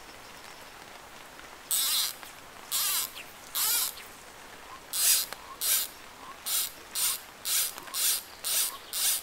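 Fly line hissing in short zips as it is cast and handled through the rod rings: three about a second apart, then a quicker run of about two a second once the line is on the water.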